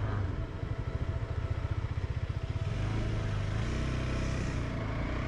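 KTM 390 Adventure's single-cylinder engine running as the motorcycle rides off, its note shifting about three seconds in.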